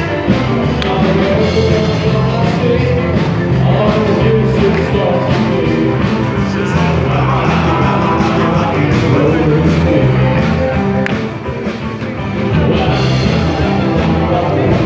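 Live rock'n'roll band playing with a singer, a steady driving beat under the vocals; the music drops slightly for a moment about three-quarters of the way through.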